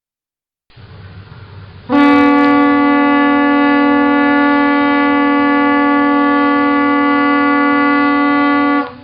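Mid-size boat air horn sounding one long, steady blast of about seven seconds. It starts about two seconds in over a low background rumble and cuts off near the end.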